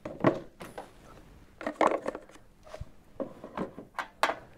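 Plaster dental models fitted with metal expander appliances handled and set down on a metal bench top: a series of irregular knocks and clatters.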